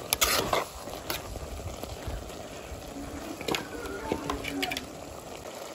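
Chopped vegetables for sambar sizzling as they fry in a steaming pot, with a ladle knocking and scraping against the pot several times in the first second.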